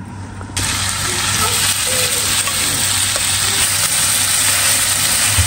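Marinated shredded chicken hitting hot oil in a nonstick frying pan, bursting into a steady sizzle about half a second in as it is stirred with a wooden spatula.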